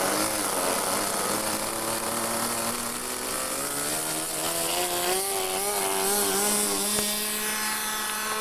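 Small two-stroke glow-fuel model aircraft engine, a Super Tigre .45, running at high revs on a radio-controlled trainer plane through its takeoff roll and climb-out. It has a buzzing whine whose pitch rises about two to three seconds in and then wavers as the plane moves away.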